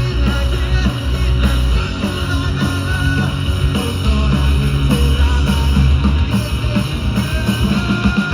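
Rock music with guitar, bass and a steady beat.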